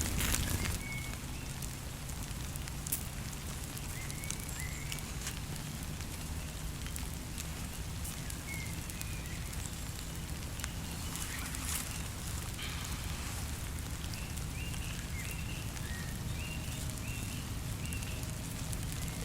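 Wood campfire crackling, with scattered small pops over a steady hiss. A few faint short bird chirps come in, mostly near the end.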